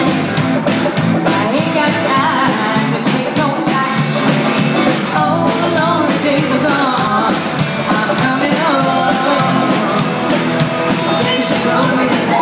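Rock and roll song with a singing voice over guitar and drums, playing steadily.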